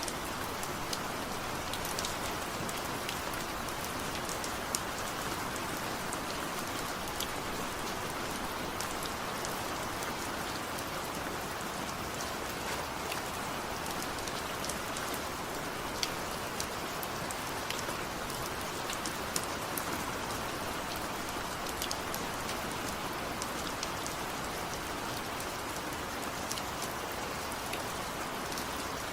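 Steady rain, an even hiss with many small drop ticks scattered through it.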